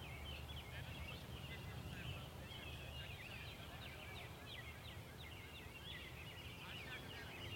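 Small birds chirping and singing in quick, overlapping short notes, with a steady low rumble underneath.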